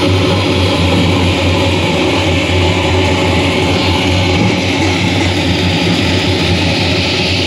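Loud music from a street sound system of stacked horn loudspeakers, with a strong, steady bass.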